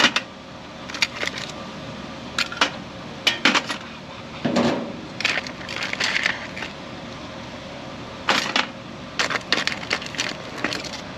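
Metal tongs clacking against a metal pan and an aluminium steamer pot as crabs are lifted in one at a time: irregular sharp clicks and knocks.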